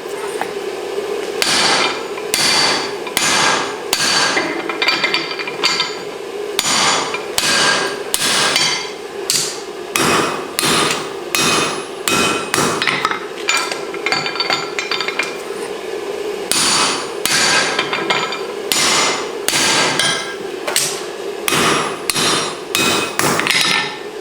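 Hand hammer striking the top of a blacksmith's guillotine tool, driving its dies into mild-steel flat stock to isolate material for a tong jaw. It is a long run of ringing metallic blows, about one to two a second, with a short pause about two-thirds of the way through. A steady hum runs underneath.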